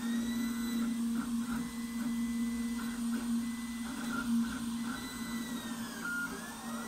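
MINGDA MD-6C FDM 3D printer running a print: its stepper motors whine in rapid short chirps and in long tones that glide up and down in pitch as the print head speeds up and slows, over a steady low hum.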